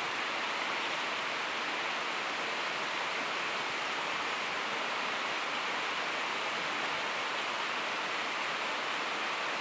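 Steady rushing of river water: an even, unbroken hiss with no distinct knocks or clicks.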